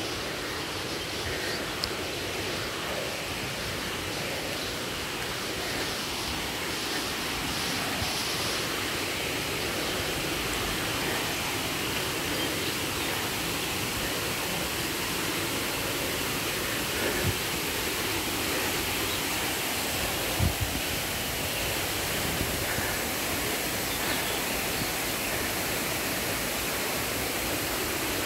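Steady rushing water, an even hiss with no let-up, growing slightly louder. Two brief bumps stand out over it, one about two-thirds of the way in and another a few seconds later.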